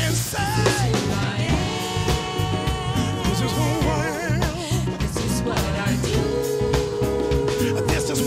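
Live gospel band: a group of singers singing with vibrato over piano, bass guitar and drum kit, with one long held note near the end.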